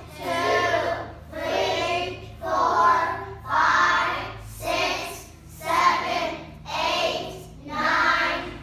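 A class of kindergarten children counting aloud together in a slow, sing-song chant, about one number a second, eight or so counts in all.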